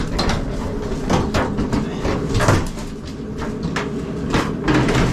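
A lightweight mobile home bathtub being wrenched loose and tipped up on end: scraping and creaking with a string of sharp knocks and cracks as it shifts and bumps against the floor and walls.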